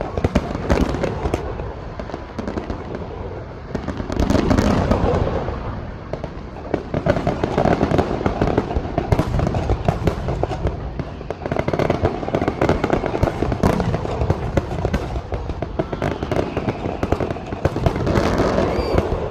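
Fireworks finale: a dense, rapid barrage of bangs and crackling shells going off without pause, swelling louder about four seconds in and again near the end.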